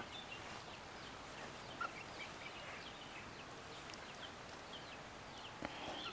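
Faint, scattered bird chirps in the background. Near the end comes a soft knock as a metal spoon presses the halwa into a glass bowl.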